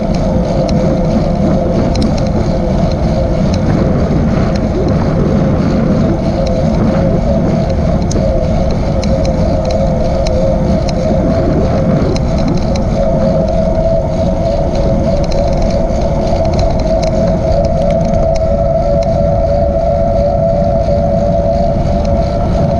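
Steady wind noise on the microphone of a camera moving along a trail at about 10 to 17 mph, with a constant wavering hum underneath.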